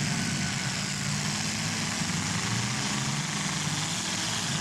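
Engines of full-size demolition derby cars running steadily, a low even drone under a noisy haze.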